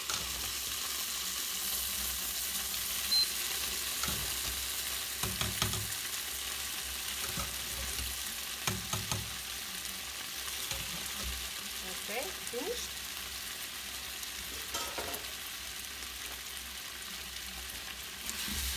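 Freshly boiled pasta sizzling in a hot frying pan of artichokes, a steady high hiss that starts as the pasta goes in. It is being stirred, with occasional knocks of the utensil against the pan.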